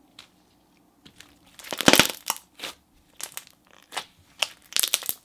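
Thick slime packed with jumbo foam balls being pressed flat by hand, crackling and popping in quick clusters. The loudest run comes about two seconds in, with more bursts through the second half.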